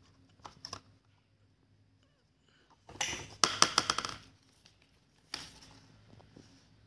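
Hard plastic clicking and clattering as the brush cutter's black plastic air filter cover is handled. A few light clicks come first, then a dense, rapid rattle of clicks lasting about a second from about three seconds in, and one more knock a little after five seconds.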